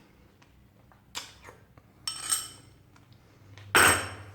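Dishes and cutlery clinking, a few light taps with one short ringing clink about two seconds in, then a louder knock near the end.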